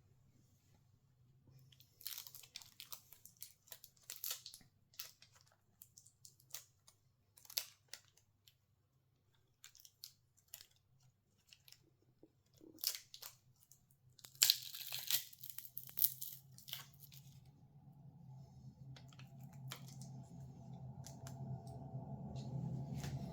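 Small handling noises of a phone being worked on at a repair bench: irregular clicks and short rustling scrapes, busiest about two-thirds of the way in. Background music fades in and swells over the last few seconds.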